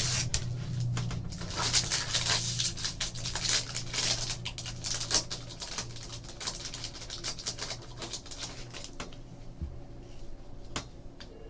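Plastic wrapper of a trading-card pack crinkling and tearing as it is opened, a dense run of crackly clicks that thins out over the second half into lighter rustling.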